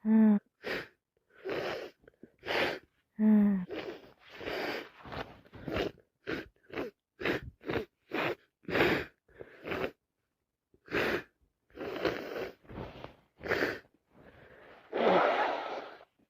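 A woman with a cold sneezing and sniffling: two short voiced sneeze sounds in the first few seconds, then a long run of quick sniffs and breaths, and a longer, harsher sneeze near the end.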